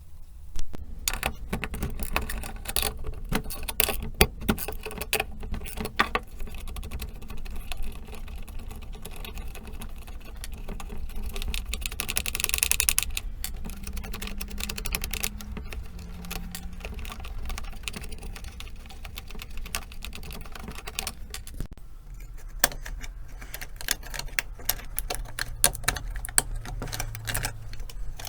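Irregular clicking and light clatter of small metal parts and hand tools, typical of hands-on work taking apart or refitting a car instrument panel.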